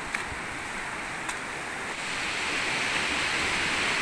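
Steady rush of water, with a couple of faint ticks in the first second and a half; it gets louder about two seconds in.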